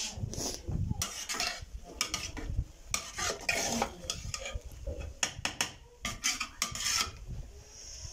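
A long-handled ladle stirring saag in an aluminium pot, scraping and knocking against the metal in irregular strokes.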